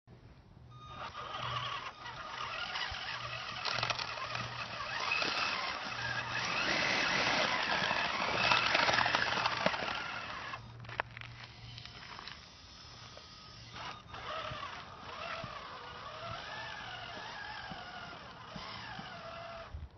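Electric motor and gears of a Tamiya F350 Highlift RC truck whining as it drives, the pitch rising and falling with the throttle, with its tyres rolling over rough pavement. It is loudest in the middle and grows fainter in the second half.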